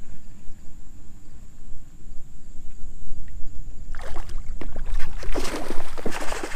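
Water splashing at the surface, starting about four seconds in and continuing irregularly, over a low, steady wind rumble on the microphone.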